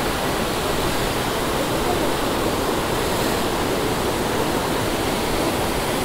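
Shallow, fast-flowing forest stream rushing over rocks: a steady, even rush of water, heard from close by in the current.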